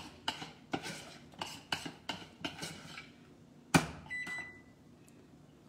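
Metal spoon stirring thick caramel sauce in a stainless steel saucepan, scraping against the pan about three times a second, then a single sharp knock of metal on the pan. A short electronic beep follows just after the knock.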